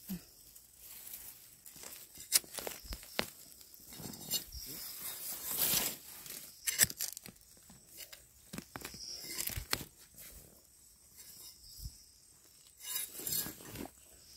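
Irregular rustling and crackling of leaf litter and grass as wild mushrooms are pulled up and handled on the forest floor, with a few sharp clicks among it.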